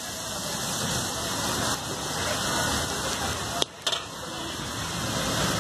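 Rice sizzling as it is stir-fried in a large iron wok over a gas burner, a steady frying hiss. About three and a half seconds in there is a sharp click and the sound briefly drops away before the hiss resumes.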